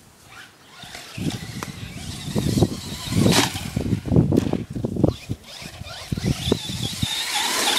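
Radio-controlled off-road car being driven over rough ground: a run of irregular low thumps and rumbles, then a high wavering whine near the end.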